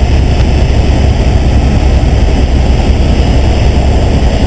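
Helicopter's engine and rotor running steadily in flight, heard from inside the cabin as a loud, even low drone.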